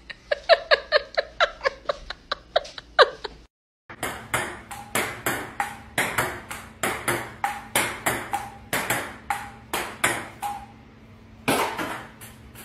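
Ping-pong ball clicking on a table-tennis table and off a paddle: a quick run of sharp, ringing ticks, a brief break about three and a half seconds in, then a steady back-and-forth rally of hits and bounces.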